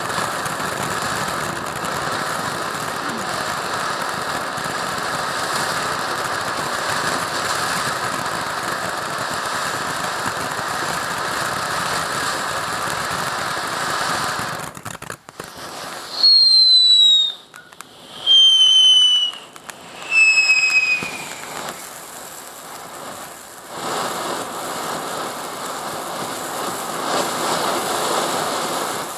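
Firework fountain spraying sparks with a steady rushing hiss. About halfway through come three loud whistles, each about a second long and falling slightly in pitch, then the hissing spray picks up again.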